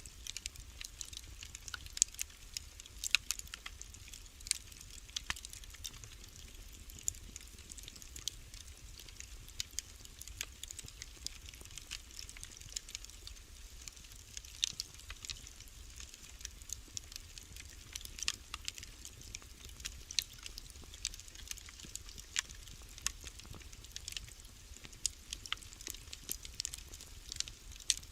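Wood fire in a fireplace crackling: irregular sharp pops and snaps, several a second, over a soft hiss and a low rumble.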